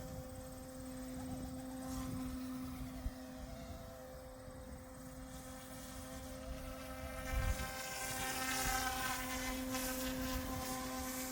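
Goosky S1 RC helicopter hovering, its electric motors and rotor blades making a steady high buzz with a second, wavering whine above it. The buzz grows a little louder past the middle.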